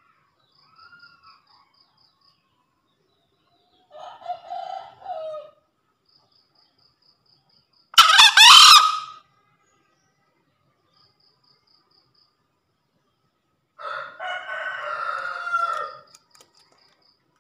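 Green junglefowl crowing several times, with a loud short crow about eight seconds in and a longer call near the end.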